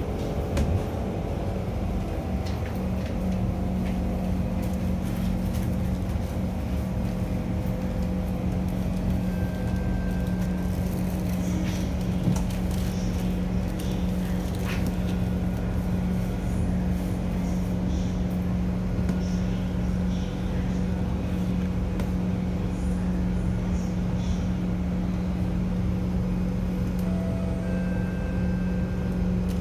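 Kawasaki C151 electric train heard from inside the carriage, running at a steady speed through a tunnel: a continuous low rumble of wheels on rail with a steady hum and a few faint high clicks.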